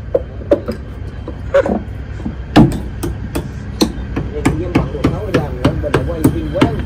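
Hammer blows on a wooden hatch cover on a fishing boat's deck: sharp, irregular strikes, about a dozen, over a steady low hum.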